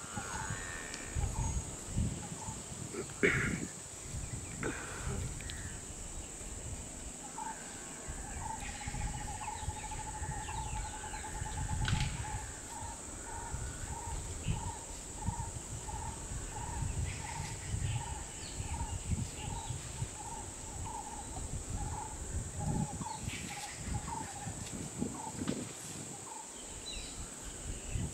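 Countryside ambience: a steady high insect drone, with a bird repeating one note, first in a quick run and then about twice a second through the middle. Irregular low rumbles and bumps sit underneath, with one sharper knock about three seconds in.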